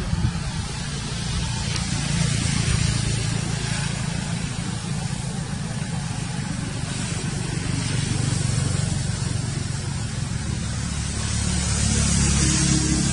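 Steady motor vehicle engine noise, running continuously and swelling a little near the end.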